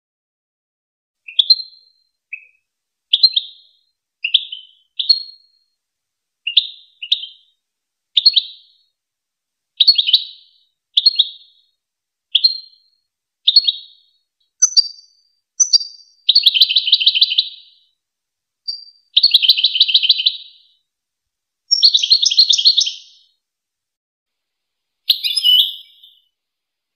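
European goldfinch song: separate short high chirps about once a second, then in the second half longer rapid trilled phrases lasting one to two seconds each.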